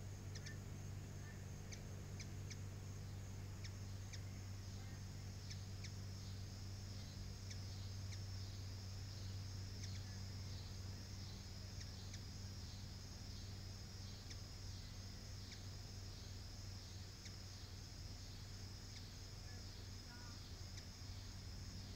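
A steady low hum under a high insect chorus that pulses about twice a second, with scattered short high chirps, several in the first few seconds.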